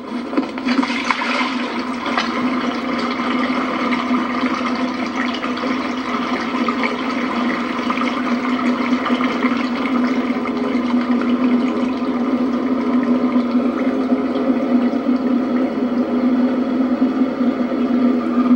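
Motorboat engine running steadily at low speed, a constant low hum over the wash of water along the hull, heard through a television speaker.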